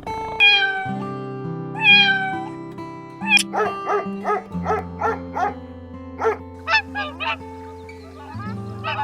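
Domestic cat meowing twice with long, falling calls, then a quick run of about a dozen short, higher calls, over steady background music.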